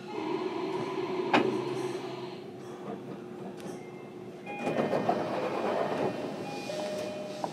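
JR Kyushu 305 series train doors sliding shut, closing with a sharp thud about a second and a half in. A few seconds later comes a louder burst of hiss and rattle from the train.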